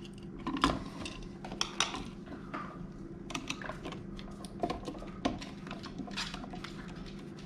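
Scattered light clicks and metallic taps of a screwdriver and wires against an electrical wall outlet as it is handled out of its wall box and the screwdriver is set to its terminal screws.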